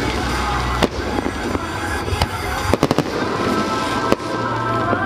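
Aerial fireworks bursting, with several sharp bangs and crackling, over music playing with a steady bass line.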